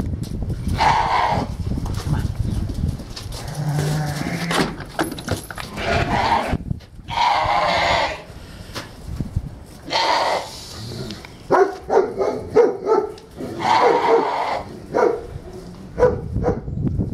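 A lamb bleating again and again, loud calls of about a second each every few seconds, with a run of shorter, clipped calls in the second half.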